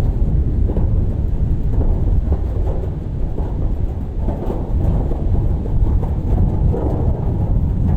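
Strong storm wind buffeting the microphone: a loud, steady low rumble.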